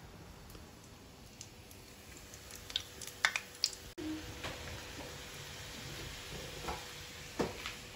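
A few sharp clicks, then breaded coxinhas deep-frying in a saucepan of hot oil: a steady sizzle with occasional pops.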